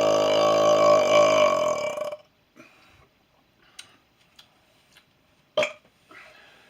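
A long burp at a steady pitch that stops about two seconds in; then a few faint clicks, one sharp loud click about five and a half seconds in, and a soft breath near the end.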